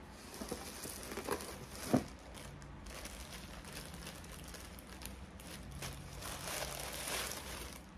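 Clear plastic bag crinkling and rustling as it is handled, with a sharp click about two seconds in.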